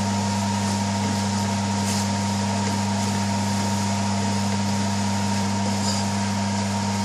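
A steady mechanical hum with a thin high tone running through it. A spoon stirring spices and onions in a steel pot scrapes faintly a couple of times.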